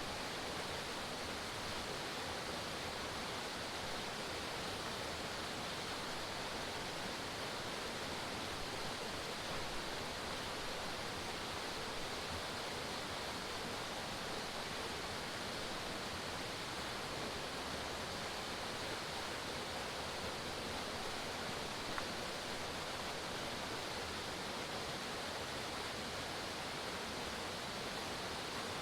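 Forest waterfall: water falling and splashing in a steady, even rush.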